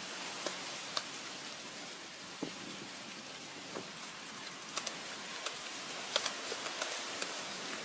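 A wooden hand float scraping and tapping wet cement in short, irregular strokes as it smooths a pool wall, over a steady high-pitched whine.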